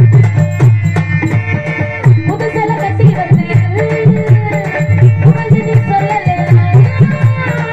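Live Tamil folk-drama band music: a fast, heavy hand-drum rhythm, with a wavering melody line coming in about two and a half seconds in.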